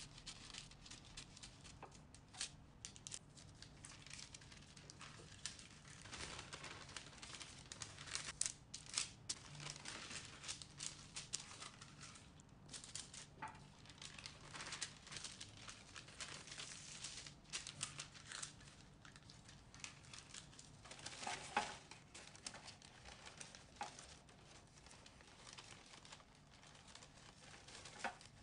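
Baking parchment paper rustling and crinkling in many short, faint strokes as it is snipped with scissors, creased flat and pressed into a metal loaf tin as a liner.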